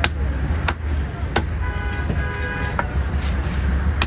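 Butcher's cleaver chopping goat meat on a wooden chopping block, sharp chops about every 0.7 s, four in all, with a gap in the middle. A steady low traffic rumble runs underneath, and a vehicle horn sounds for about a second near the middle.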